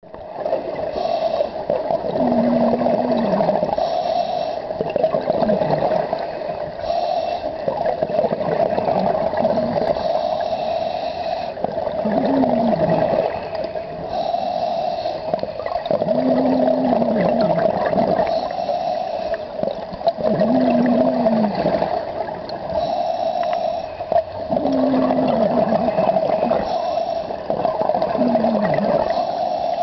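Scuba diver breathing through a regulator underwater: a hissing inhale, then a bubbling exhale with a low groan that bends down in pitch, repeating about every four seconds over a steady hum.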